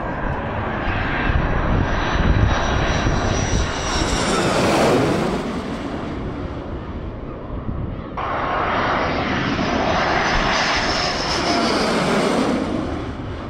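Military fighter jets on landing approach flying low overhead: loud jet engine noise with a high whine that swells to a peak about five seconds in. After an abrupt cut about eight seconds in, a Su-30SM fighter with its gear down passes close overhead, peaking near the end.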